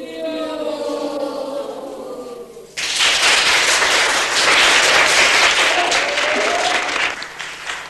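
A group of children's voices holds a drawn-out chant together. About three seconds in, loud clapping and cheering from a classroom of children breaks out suddenly and dies down near the end.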